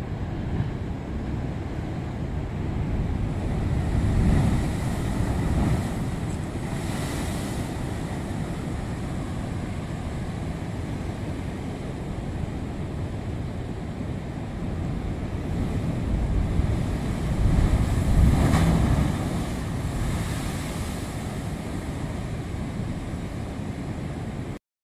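Heavy Tasman Sea surf against the limestone coast, a steady low rumble that swells twice, about four seconds in and again about seventeen seconds in, with wind buffeting the microphone. The sound cuts off suddenly just before the end.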